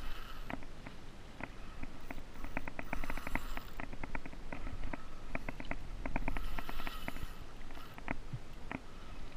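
Fishing reel being cranked in against a fish, with many quick irregular clicks over water slapping the kayak hull. Two brief louder rushes of noise come about three and seven seconds in.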